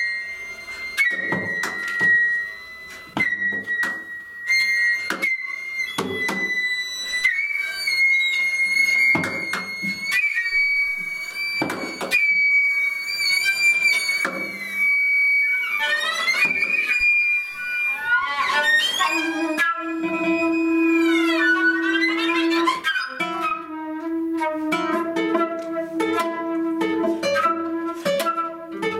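Flute, viola and guitar trio playing contemporary chamber music: a high held note runs through the first half, cut across by sharp plucked guitar attacks. Sliding pitches follow in the middle, then a steady lower held note over quick repeated plucks near the end.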